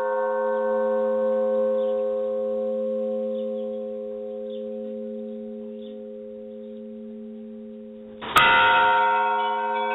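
Church bell ringing: one stroke's tones dying away slowly, then the bell struck again loudly about eight seconds in.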